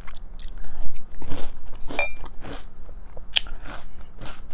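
Crunchy breakfast cereal being chewed close to the microphone: a regular run of crunches, about three a second.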